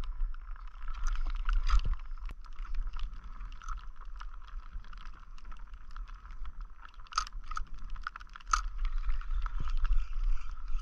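Wind rumbling on the microphone with water lapping against a plastic kayak hull and scattered light clicks and knocks, with two sharper clicks in the second half.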